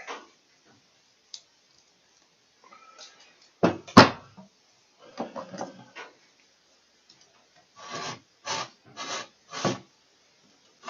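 Hands working a seal ring onto a hydraulic cylinder part: light handling and rubbing noises, one sharp knock about four seconds in, and four short rubbing strokes near the end.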